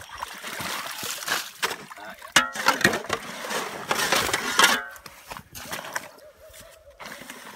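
Slush and broken ice in a hole cut in lake ice being chopped and shovelled: wet crunching, sloshing and repeated knocks of an axe and a shovel. It goes quieter after about five seconds, as a slab of ice is pushed out of the hole.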